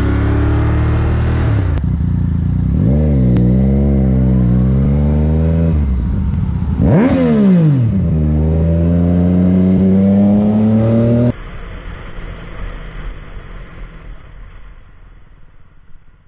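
Motorcycle engines heard from on the bike, across several clips. First one engine climbs in pitch as it accelerates. Then another revs up and down, its pitch dropping sharply and climbing again about seven seconds in. In the last five seconds it gives way to much quieter, muffled traffic noise.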